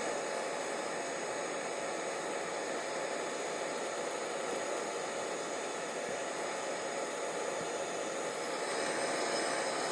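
Hot-air blower running steadily with an even rushing hiss, warming the wax that holds an accordion reed plate to its reed block until the plate lets go.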